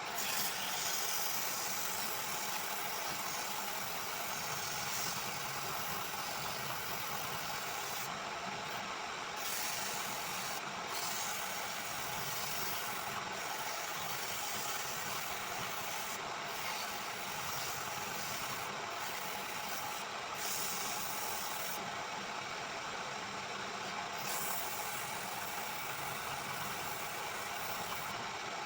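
Woodworking machine running steadily with a dense hiss. The highest part of the hiss drops out briefly several times.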